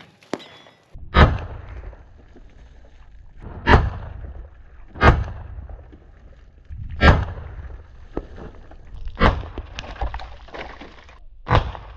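Big Horn Armory Model 89 lever-action rifle in .500 S&W firing about six shots, one every one to two and a half seconds. Each is a sharp crack with a deep boom after it, as plastic gallon water jugs on a table are hit, burst and splash.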